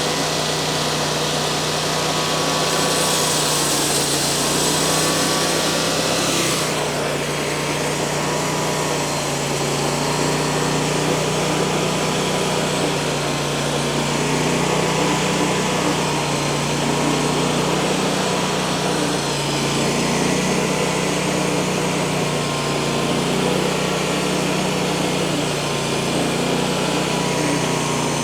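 Frontier OS35 portable band sawmill's small gasoline engine running steadily under load as the band blade cuts through a large log. A brighter hiss sits on top for a few seconds near the start.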